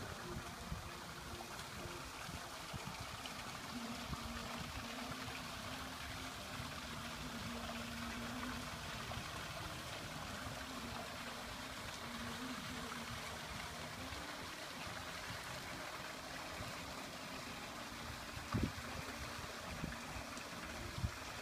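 Steady outdoor background noise, an even soft rushing hiss, with low rumbling on the microphone throughout and a couple of short low knocks near the end.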